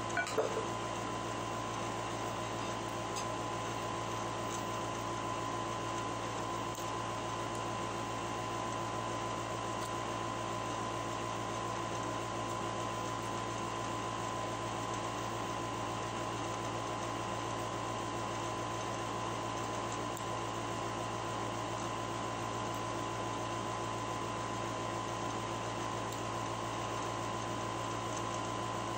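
Steady mechanical hum of a running appliance with a constant high whine over it, unchanging throughout; a brief knock just after the start.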